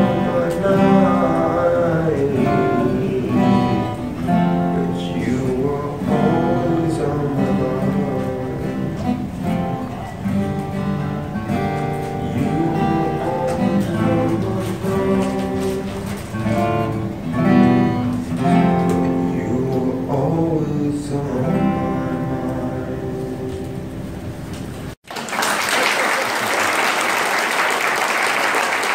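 Acoustic guitar playing the closing bars of a slow song. About 25 seconds in, the sound cuts out for an instant, and an audience's applause follows.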